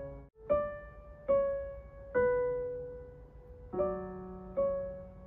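Slow piano-like keyboard music in an electric-piano tone: single notes and chords struck about once a second, each ringing out and fading. The sound cuts out briefly just after the start.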